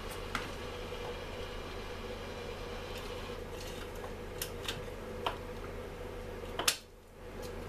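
A few light clicks and taps of parts being handled and fitted on a Stihl MS 250 chainsaw, spaced irregularly, the sharpest near the end, over a steady background hum.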